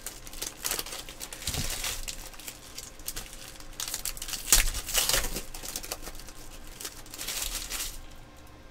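Shiny trading-card pack wrappers crinkling and tearing as packs are opened by hand, with cards being handled, in irregular rustling bursts. The loudest crinkle comes about four and a half seconds in, and it quietens near the end.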